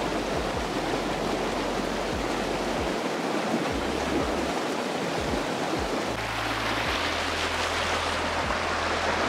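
Rushing water of a creek, a steady, even hiss with no breaks.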